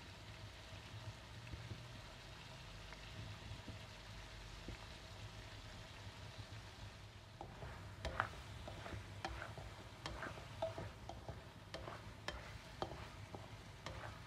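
Chicken pieces frying faintly in a wok, a steady low sizzle; from about eight seconds in, a spatula scrapes and knocks against the wok in repeated strokes as the chicken is stirred.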